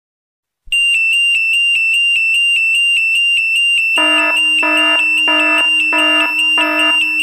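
An electronic emergency alert alarm. A high tone starts about a second in, beeping rapidly at about five pulses a second. About four seconds in, a lower, fuller tone joins and pulses about three times every two seconds.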